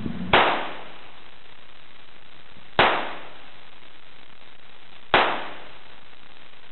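Three handgun shots, about two and a half seconds apart, each followed by a brief echo off the walls of the indoor shooting range.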